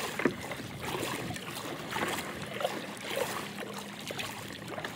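Kayak paddle strokes, the blades dipping and pulling through the water with splashing.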